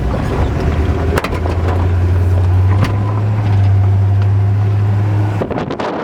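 The V8 of a 1952 Ford F1 pickup with dual exhaust running as the truck drives, a low exhaust note that grows louder and steps up in pitch about three seconds in. About five and a half seconds in it drops away suddenly, leaving wind on the microphone.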